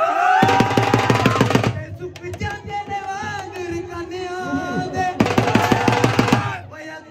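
A man singing into a microphone, with two runs of rapid drumbeats, one just after the start and one about five seconds in.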